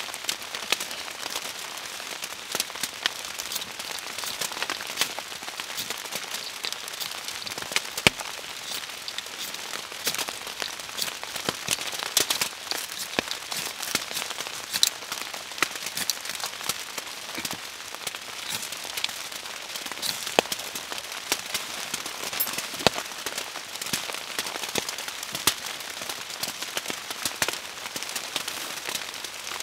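Steady rain pattering, with many irregular sharp drop ticks.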